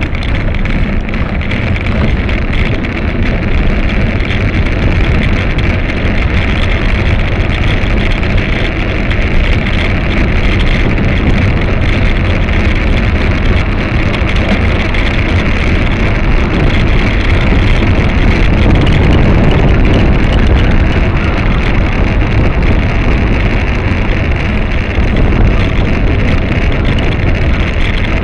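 Steady wind rumble on the microphone of a camera on a moving bicycle, over road and traffic noise.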